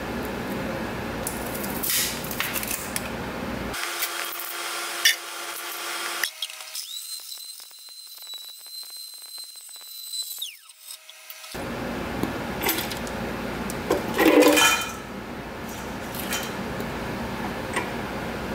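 Bateerun tabletop blender running with a laptop CPU inside, the hard piece clattering against the jar with sharp clacks. The whole chip is not breaking up; it needs cutting into pieces first.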